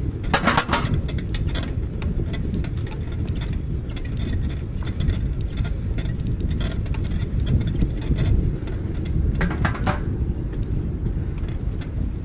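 Wind noise on the microphone, a steady low rumble, with two short bursts of crackling rustle: one just after the start and one about nine and a half seconds in.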